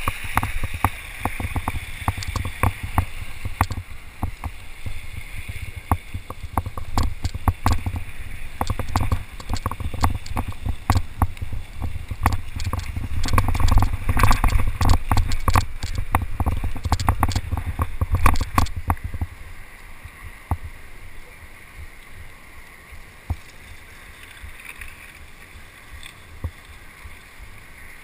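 Mountain bike descending a rough, wet, rocky trail: a continuous clatter of knocks and rattles from the bike and tyres over rock, over a low rumble. About two-thirds of the way in it eases off to a much quieter, steady hiss with only the odd click.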